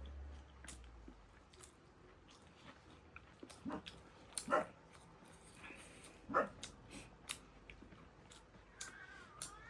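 A dog barks three times, a second or two apart, over faint clicks and smacks of chewing.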